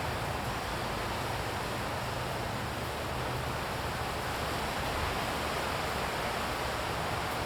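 Steady rushing noise with no distinct sounds in it.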